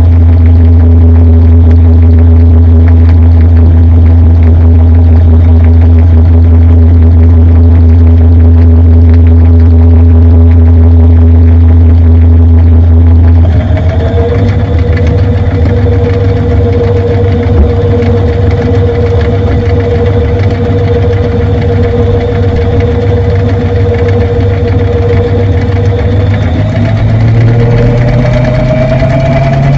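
Washing machine running, heard from inside the drum: a loud, steady motor hum and whine. About halfway the hum changes abruptly to a different pitch, and near the end the whine rises as the drum speeds up.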